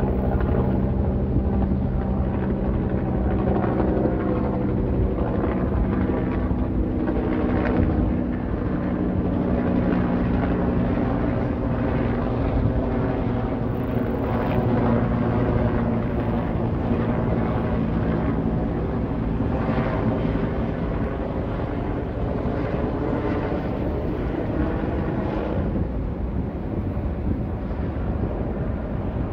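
Helicopter passing overhead: a steady, continuous rotor and engine drone, its pitch sliding slightly lower in the first several seconds and growing a little quieter in the second half as it moves off.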